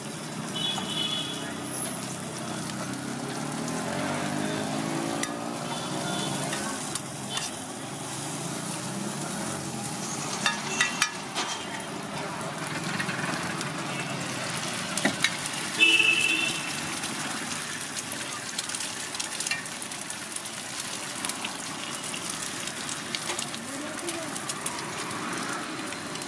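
Sliced onions and eggs frying with a steady sizzle on a large flat iron griddle, with a few sharp clicks and taps around the middle.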